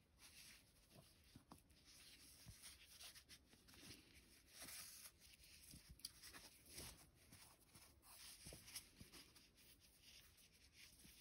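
Faint rustling and scratching of yarn being drawn through crochet stitches with a needle, with scattered small soft clicks from handling the piece.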